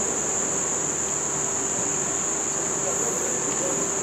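A steady, high-pitched insect chorus that does not change, with faint distant voices near the end.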